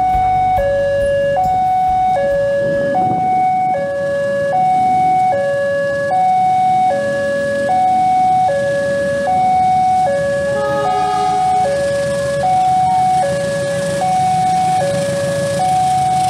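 Railway level-crossing warning alarm sounding a steady electronic two-tone hi-lo alternation, each tone held a little under a second, while the gates are closed for an approaching train. A low rumble from the oncoming diesel locomotive runs underneath.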